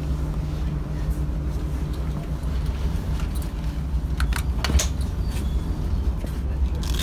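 Class 121 diesel railcar running slowly, heard from inside the driving cab: a steady low engine and running rumble, with a few sharp clicks about four to five seconds in.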